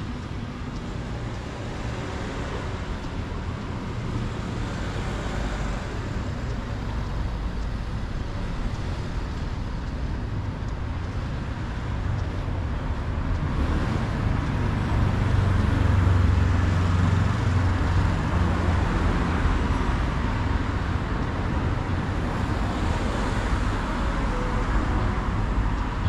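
City street traffic: a steady hum of vehicles, with a low engine rumble swelling as a vehicle passes close a little past halfway.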